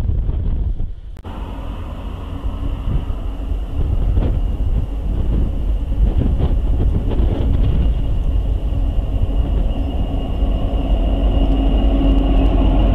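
Norfolk Southern diesel locomotives approaching at the head of a freight train, heard through a trackside webcam microphone: a heavy engine rumble that grows louder as they near, with a steady whine coming in near the end.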